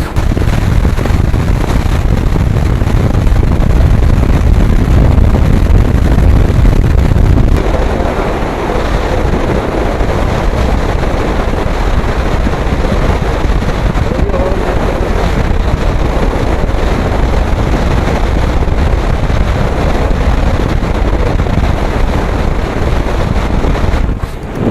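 Wind rushing and buffeting over an action camera's built-in microphone on a moving motorbike, with vehicle noise underneath. About seven seconds in, the low rumble eases and a lighter hiss carries on.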